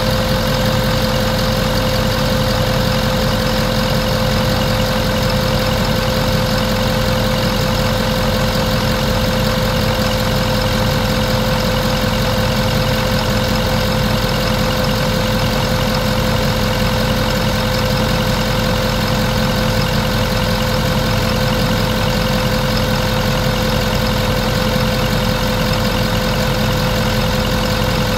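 Ford F-450 truck engine idling steadily under the open hood, with a steady whine over the running.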